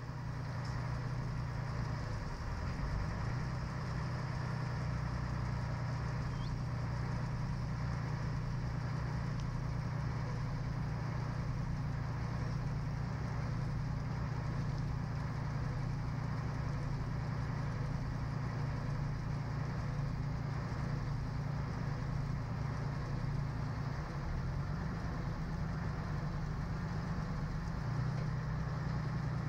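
Small boat's engine running steadily, a constant low drone that wavers slightly now and then.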